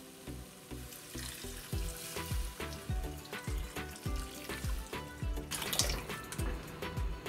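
Water poured into a stainless steel pot of tomato and onion sauce, splashing as it hits the sauce. The pouring is loudest about three-quarters of the way through. Background music with a steady beat plays throughout.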